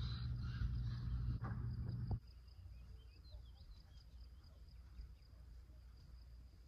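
A steady low rumble and hiss from a wood fire and an oil-filled cast-iron skillet for about two seconds, which cuts off suddenly. Quieter outdoor ambience follows: a steady high insect buzz, like crickets, with faint scattered bird chirps.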